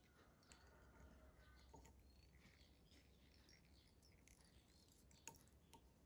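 Near silence, with faint ticks and rustles of fingers handling tying thread and materials on a fly-tying vise, and one sharper small click about five seconds in.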